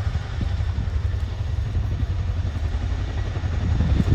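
Boeing Chinook HC.6 tandem-rotor helicopter in flight: the rotors keep up a steady, low, rapid thudding rumble over the engines' running.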